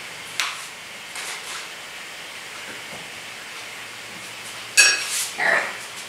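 Painting tools clinking against hard containers: a small tap about half a second in and a sharp, ringing clink near the end, over low room noise.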